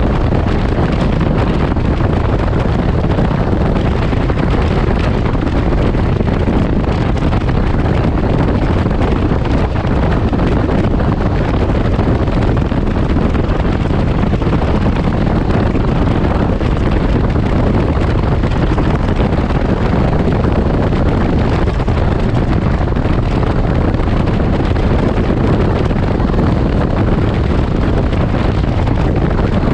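Steady wind rush buffeting the microphone over the running engine and road noise of a Can-Am Ryker Rally three-wheeler cruising at highway speed.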